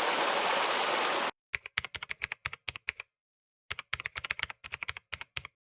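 Steady rush of stream water that cuts off abruptly about a second in, followed by two quick runs of keyboard-typing clicks separated by a short silence.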